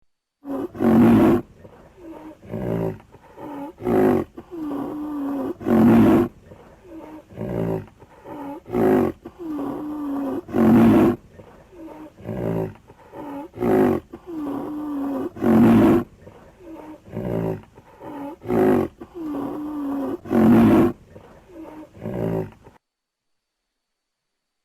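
Javan rhinoceros calling: loud, pitched bellowing calls repeat every two to three seconds, with quieter pitched grunting sounds between them. The calls stop near the end.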